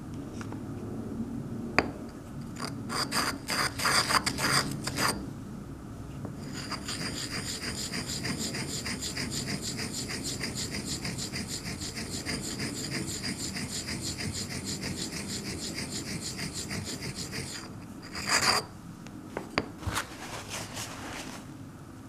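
An ink stick is ground in circles on a round inkstone with water, making a gritty rasping scrape with a thin high squeak. A few uneven strokes are followed by a steady, rapid run of strokes lasting about ten seconds, then a last short scrape and a couple of light knocks. The title calls it the grinding noise of not-high-quality ink.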